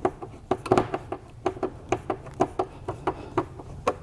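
Hand screwdriver turning a machine screw through a steel mounting bracket into the back of a TV, making a run of sharp clicks, about two or three a second.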